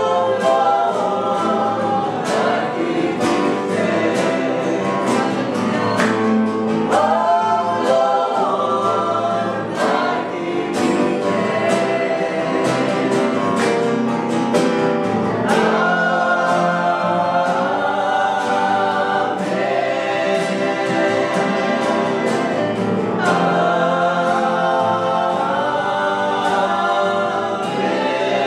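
Gospel worship song: voices singing together over a strummed guitar accompaniment, with a steady beat and no break.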